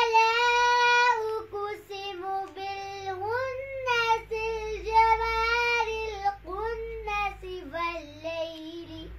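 A young girl reciting the Quran in Arabic, chanting melodically in phrases with long held notes and ornamented glides in pitch.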